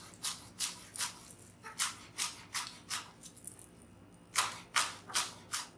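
Chef's knife chopping spring onions on a wooden cutting board: sharp, even knocks of the blade against the board, about three a second, with a brief pause a little past three seconds in before the chopping resumes.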